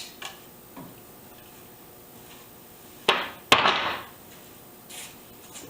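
Two sharp knocks about half a second apart, a little over three seconds in, the second ringing out briefly: rough lumber boards knocking as they are handled.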